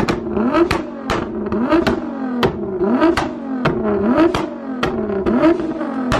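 Nissan GT-R R35's twin-turbo 3.8-litre V6 revved in quick repeated blips, about one every 0.6 s, the pitch rising and falling each time. A sharp pop or bang comes with each blip from its 650R pops-and-bangs tune, on the exhaust fitted before the Fi Exhaust.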